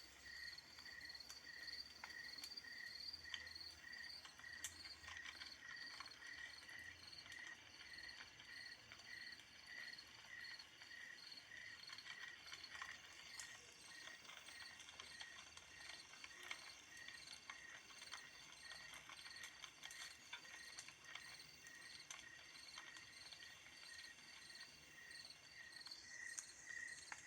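Faint crickets chirping in a steady rhythm of about three chirps a second. The chirping weakens about halfway through and comes back clearly near the end, over faint background hiss with scattered small clicks.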